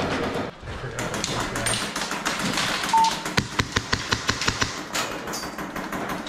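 HPA-powered Scorpion Evo airsoft gun firing a quick string of shots, about six a second, for roughly a second and a half, starting about halfway in.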